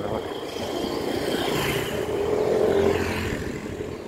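A motor vehicle passing close by, its engine sound growing louder to a peak about three seconds in, then easing off.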